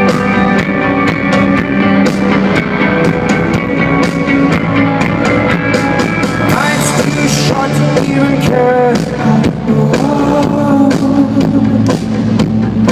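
Rock band playing live with no lyrics sung: a drum kit beating steadily under sustained guitar chords, with a few bending notes around the middle.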